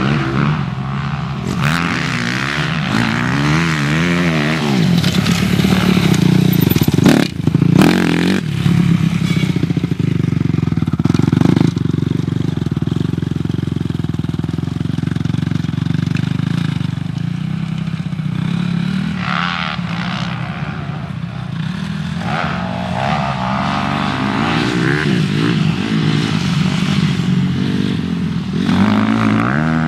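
Motocross dirt bike engines revving hard and backing off again and again as the riders accelerate out of turns and over jumps, the pitch repeatedly rising and falling. A couple of brief sharp knocks come about seven seconds in.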